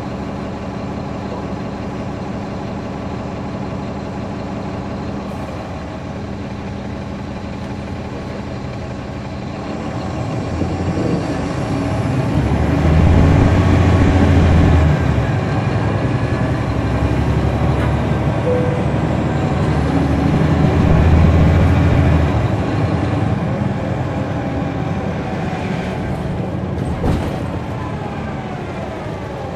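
Caterpillar C13 ACERT diesel engine of a NABI 40-foot transit bus, heard from the rear seats. It runs steadily at first, then revs up hard about a third of the way in, eases back briefly, and climbs again before dying down as the bus slows. A short sharp click comes near the end.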